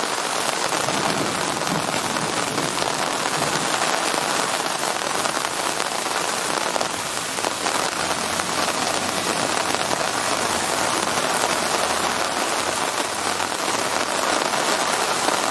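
Torrential rain, a cloudburst, pouring down steadily onto a flooded street.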